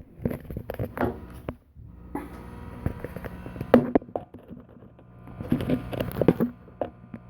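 Clicks, knocks and rattles of a multimeter and its test leads being handled and set up. From about two seconds in they run over a steady low hum.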